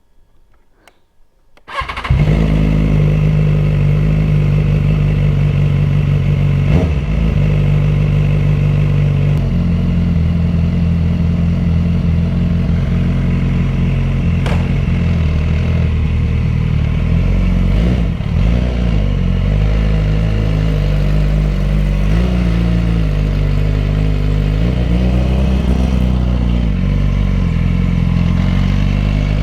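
2010 BMW S1000RR's 999 cc inline-four engine running loud, cutting in abruptly about two seconds in, its pitch stepping up and down several times. The S1000's engine has a mechanical rattle the rider likens to sand thrown inside it.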